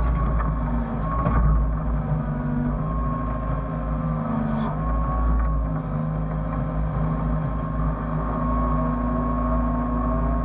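Hyundai excavator's diesel engine running steadily under load, with a higher whine that wavers slightly in pitch over it and a few faint knocks.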